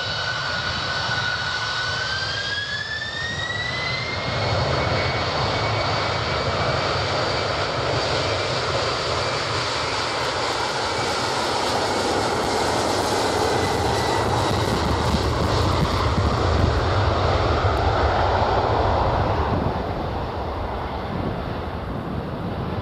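Boeing 747-400's four jet engines spooling up for takeoff: a whine rises in pitch over the first few seconds, then holds under a steady heavy rush of engine noise through the takeoff roll and liftoff. The noise grows louder about four seconds in and eases off near the end.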